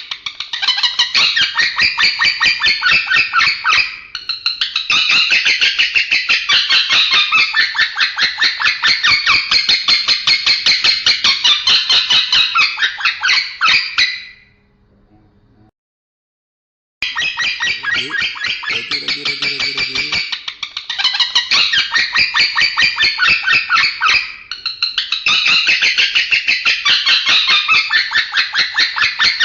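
Male lovebird giving a long, rapid, high-pitched chattering song, an unusual 'strange' voice. It breaks off to complete silence for about two seconds a little past the middle, then starts again.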